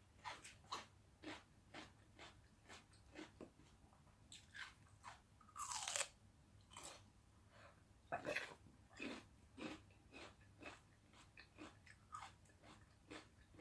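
A person chewing food with wet, crunchy bites close to the microphone, about two chews a second, with a louder, longer crunch about six seconds in.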